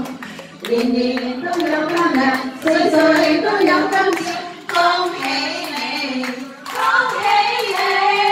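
Singing of a slow song, with several people clapping their hands along in a steady rhythm.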